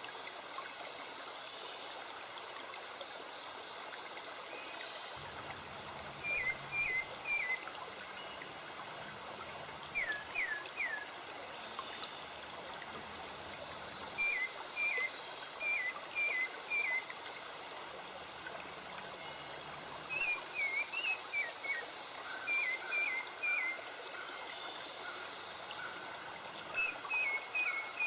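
Steady rush of running water, like a stream, with a bird calling over it in quick groups of three or so short high chirps, repeated every few seconds.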